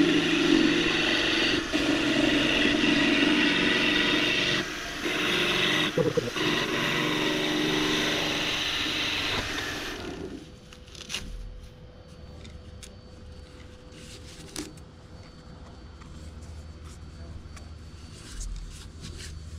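Grizzly half-inch spindle gouge cutting across a resin bottle stopper blank spinning on a wood lathe: a loud, steady cutting hiss over the lathe's hum. About halfway through the cutting stops, leaving the lathe's quieter steady hum and a few light clicks.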